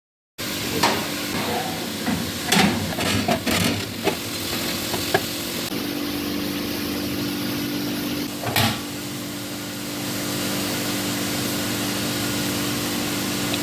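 Kitchen cookware sounds: a run of sharp clinks and knocks of metal utensils or pans in the first few seconds, and one more a little past the middle, over a steady hiss with a low electrical hum.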